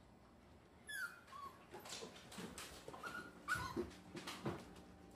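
Four-week-old puppies whimpering faintly: a short high whine that falls in pitch about a second in, and more brief whines around three seconds, with light clicks and knocks of play.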